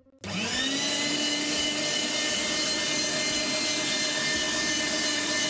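Electric meat grinder switched on about a quarter second in. Its motor whine rises quickly to speed and then runs steadily.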